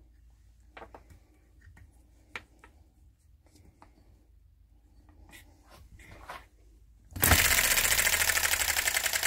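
Faint clicks and handling noises as the starter rope is wound onto the pulley. About seven seconds in, the Enjomor 6cc hit-and-miss petrol engine is rope-started and catches at once, running loud with a rapid, even firing rhythm.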